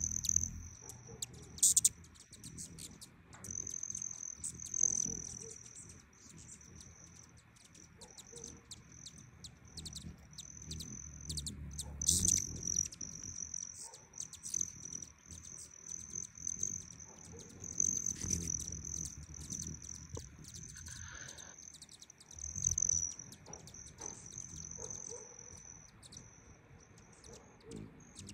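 High, buzzy wing trill of male broad-tailed hummingbirds, running on with short breaks and growing louder and softer as the birds come and go, over a low rumble of wind on the microphone.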